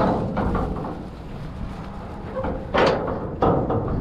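Rusty corrugated-metal door of a trash container being pushed shut and its bar latch worked: a metal knock at the start and two more clanks near the end.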